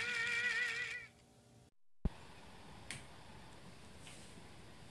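A singing voice holds a final wavering note that stops about a second in. After a moment of dead silence comes faint room tone with a few small clicks.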